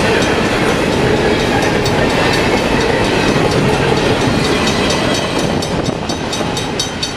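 Double-stack intermodal freight train's last cars rolling past and away: a steady rumble of steel wheels on rail with rapid clickety-clack of wheels over rail joints, easing slightly near the end.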